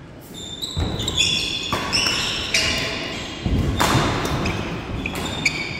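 Badminton doubles rally: court shoes squeaking repeatedly on a wooden sports-hall floor, mixed with sharp racket hits on the shuttlecock and heavier footfall thuds, two of them loudest, about a second in and midway.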